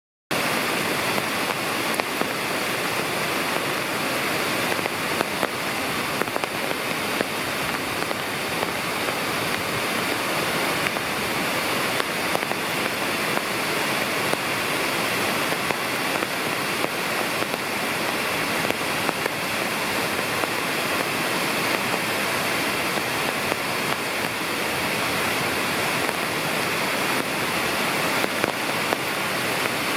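Oshinkoshin Falls: a waterfall's water crashing down, a steady, unbroken rush.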